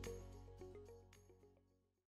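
Logo sting music fading out: a held deep bass note under a run of short pitched notes, dying away to nothing near the end.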